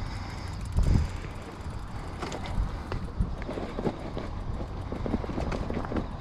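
Brompton folding bicycle rolling over rough dirt and gravel: tyre crunch and rumble with scattered clicks and knocks from the bike, and a louder thump about a second in as it hits a bump. A steady low rumble of wind on the microphone runs underneath.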